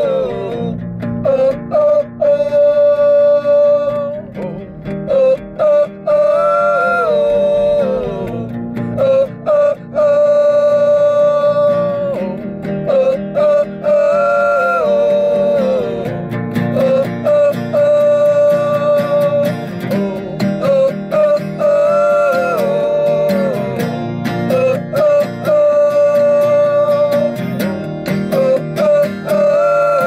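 Acoustic guitar strummed while two men sing long held notes that slide between pitches, in a phrase repeating about every four seconds, inside a car.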